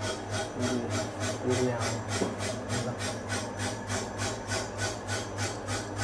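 Vertical CNC alloy-wheel repair lathe (DCM35P-2) cutting the face of a spinning alloy wheel to remove scratches: the cutting tool rasps in a fast, even rhythm, about four or five strokes a second, over a steady low machine hum.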